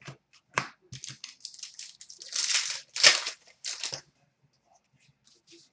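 Foil hockey-card pack wrapper crinkling and tearing in a run of short crackles, loudest about two to three seconds in.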